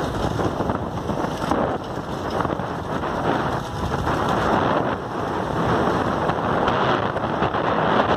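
Wind buffeting the microphone and road noise of a moving vehicle: a dense rushing rumble that swells and dips unevenly.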